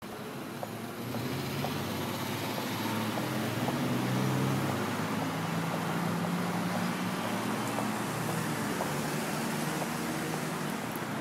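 City street traffic noise with the low hum of a motor vehicle's engine, strongest in the first half of the clip and fading out later.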